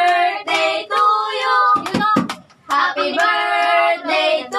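A group of voices, children's among them, singing with held notes, with a short pause about two seconds in that holds a few sharp clicks.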